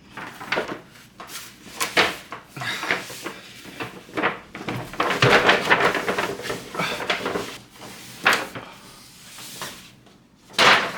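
Apple Vision Pro box being handled for unboxing: irregular rubbing, scraping and light knocks of the packaging, with a busier stretch of rustling in the middle and a louder knock near the end.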